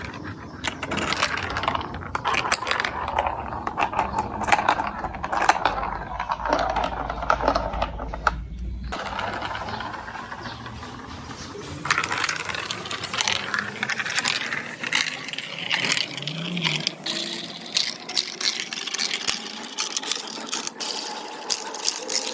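Marbles rolling and clattering through a plastic building-block marble run, a dense run of rapid clicks and rattles. A low hum runs underneath until about nine seconds in.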